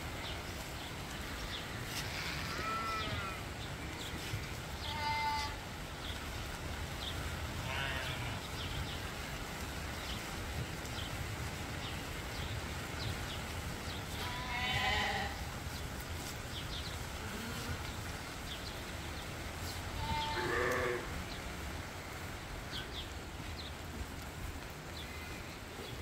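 Sheep and lambs bleating now and then, about five separate bleats, over steady low background noise.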